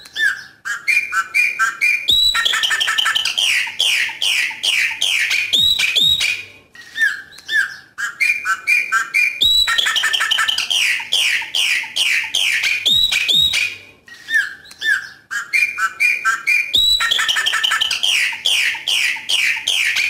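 Chopi blackbird (pássaro preto) singing its 'coqui coqui' song: long runs of rapid, loud notes about every seven seconds, with shorter clear whistled notes in between.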